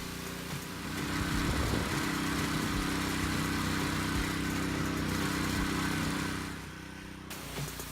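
Gas pressure washer with a Honda 190cc engine running steadily, with the hiss of the water spray over it. The sound grows louder about a second in, eases near the end, and the hiss cuts off shortly before the end.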